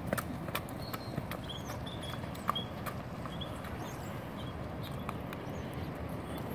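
Hoofbeats of a Thoroughbred horse trotting on a hard-packed dirt lane, growing sparser and fainter as it moves away.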